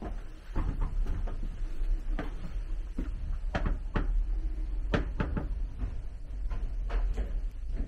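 Irregular wooden knocks and creaks inside the partly wooden 1928 Dehani Type 50 railcar, about a dozen of them, over a steady low rumble.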